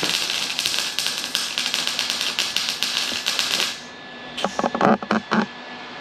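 MIG welder crackling steadily as a bead is laid on steel sheet metal. It stops about four seconds in, followed by a brief cluster of short, loud, sharp sounds.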